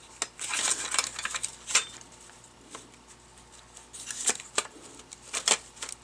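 Interior door handle parts of a 1998 Tahoe clicking and rattling as they are handled and fitted into place, in scattered bursts: a busy run of clicks over the first two seconds, a few more around four seconds in, and a sharp click near the end.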